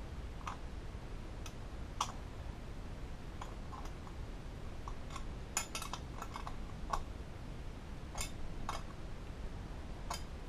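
Screwdriver clicking and scraping against the inside of a chrome bullet-mirror cup while driving a screw into the mirror pedestal: light, irregular metal clicks, a few close together in the middle of the stretch.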